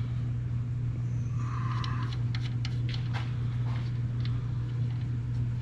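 A steady low hum underlies everything, with small clicks and a brief scrape as an oil drain pan is set under a car and the oil drain plug is unscrewed by hand.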